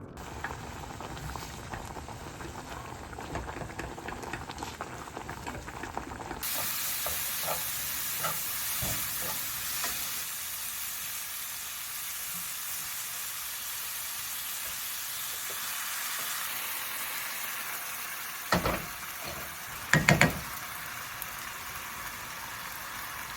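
Food sizzling in a frying pan: a quieter stretch with light clicks gives way about six seconds in to a steady sizzle. Two loud knocks come near the end.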